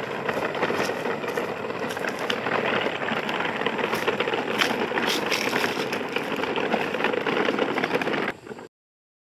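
Plastic toy dump trucks being pulled along a dirt path, their wheels and bodies rattling and crunching over soil and dry twigs as a steady clatter full of small clicks. It cuts off suddenly shortly before the end.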